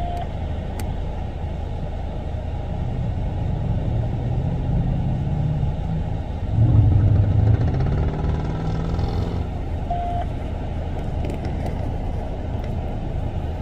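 Street traffic with engines running and tyres on the road. One vehicle passes close by, loudest about seven seconds in, its engine note audible as it goes.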